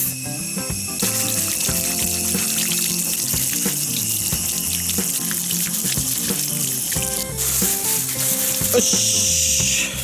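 Tap water running and splashing while live hamaguri clams are rinsed and scrubbed under it with a sponge scrubber, the hiss of the water brightening in the last couple of seconds.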